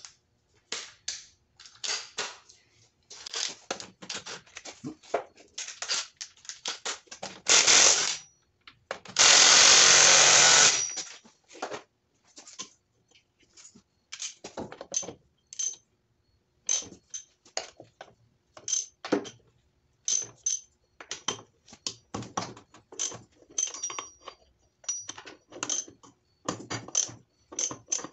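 Metal hand tools clicking and clinking against the connecting rods and rod-bolt caps of a Honda D16Y7 engine block as a wrench is set on its 12 mm rod bolts. There is a short loud noise about seven and a half seconds in, and a louder steady noise lasting about a second and a half a little before the middle.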